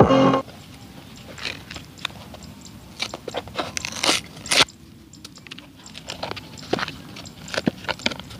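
Music from the speaker cuts off just after the start. Then come scattered crackles, clicks and scrapes of cardboard handled as the homemade cardboard speaker box is pried open by hand.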